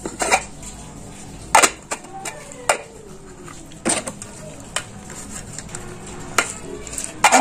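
Orange plastic lid being worked on a small clear plastic storage jar: scattered sharp plastic clicks and knocks, about eight over several seconds, as the lid is taken off, fitted back and the jar is handled.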